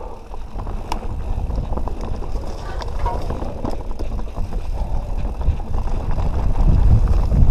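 Canyon Nerve full-suspension mountain bike rolling over rough trail: a steady low rumble from the tyres and wind, with a few sharp knocks and rattles from the bike, getting louder toward the end.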